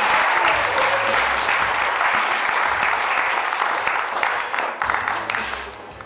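Theatre audience and cast applauding, the clapping thinning out and dying down near the end.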